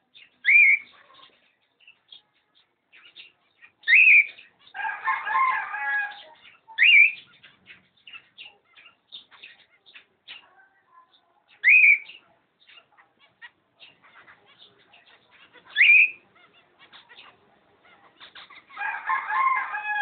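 Cockatiels calling: five short, loud whistled calls that sweep up and drop, a few seconds apart, and twice a longer, choppy chattering call.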